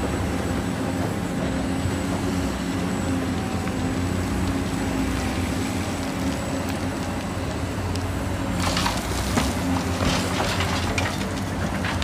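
Caterpillar 365C hydraulic excavator running steadily under load, its diesel engine and hydraulics giving a constant low drone. From about three-quarters of the way in, rocks and soil clatter and crunch as the bucket works, with many sharp cracks over the engine.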